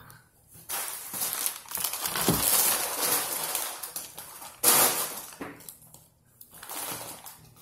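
Clear plastic bag of pretzels crinkling as it is handled, in uneven bursts, with a sudden louder crinkle about five seconds in.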